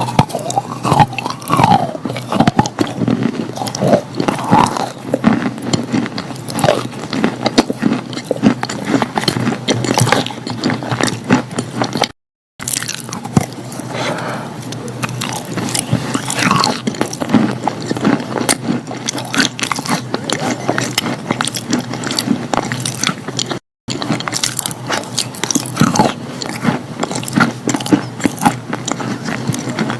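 Close-miked biting and chewing of wet chalk: dense, irregular crunching and crackling. Twice the sound drops out completely for a moment.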